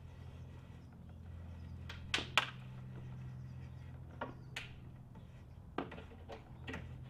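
A small angled screwdriver turning a plastic cam-lock fitting that draws two particle-board wardrobe panels tight together, giving about seven short sharp clicks and knocks, the loudest pair about two seconds in, over a steady low hum.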